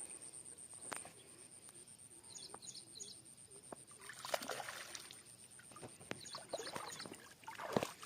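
Water splashing in two short bursts, with a few sharp knocks, while small birds chirp and a steady high whine, like insects, goes on throughout.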